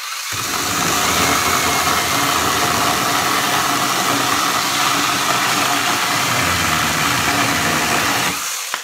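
Imoumlive 20V cordless 8-inch mini chainsaw cutting through a 3x4 redwood timber, its chain running steadily and cutting through without bogging down. The saw starts just after the opening and stops shortly before the end.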